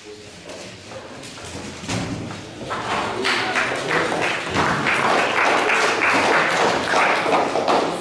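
Plastic 3x3 speedcube being turned fast: a few taps, then from about three seconds in a dense, rapid clicking clatter of layer turns that stops abruptly near the end.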